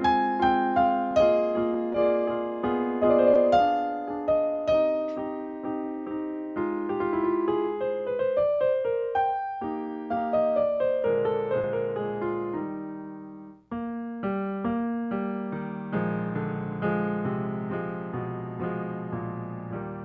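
Piano playing a slow melody, each note struck and then dying away. It breaks off briefly about two-thirds of the way through, then resumes and fades toward the end.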